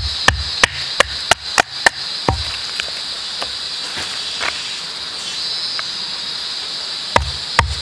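Large knife blade chopping into the top of an upright wooden stick, about three sharp strikes a second. The strikes pause for several seconds midway and resume near the end. A steady high drone of rainforest insects runs underneath.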